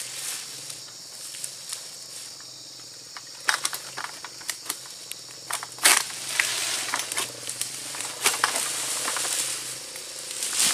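Steady high insect drone, with scattered sharp clicks and crackles from partway in, a loud crack about six seconds in, and then a few seconds of louder rustling.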